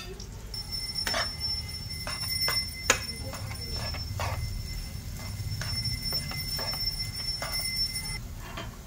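Metal spatula scraping and knocking against a granite-coated nonstick pan, breaking up and stirring milk-soaked semolina frying in ghee, in quick irregular strokes. A steady high-pitched tone sounds over it and stops near the end.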